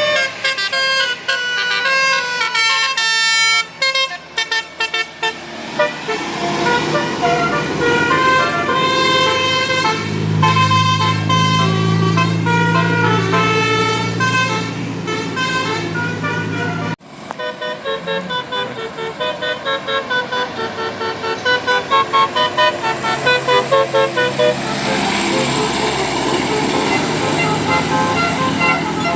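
Basuri telolet musical horns on a bus playing melodies of rapidly stepping notes, with the bus engine running low underneath from about ten seconds in. After a sudden cut a little past halfway, another telolet horn plays a tune of short, quick notes.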